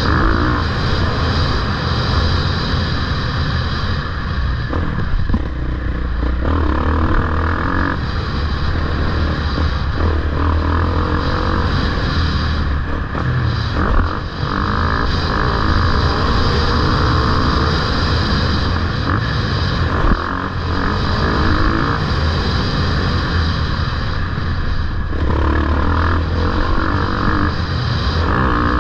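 Motocross dirt bike engines running loudly and continuously, with two brief knocks about fourteen and twenty seconds in.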